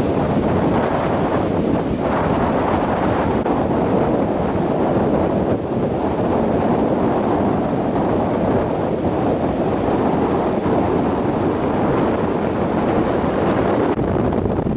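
Tropical-storm wind blowing hard and steadily across the microphone, with surf breaking on the beach underneath.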